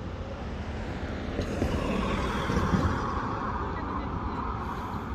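Diesel coach bus approaching along the road, its engine and tyre noise swelling about two seconds in over a steady low traffic rumble.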